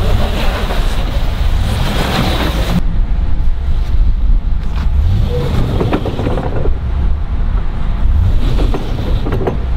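Wind rumbling on the microphone over a pickup truck's engine running, with bouts of crunching and a few light knocks from handling near the snowplow blade.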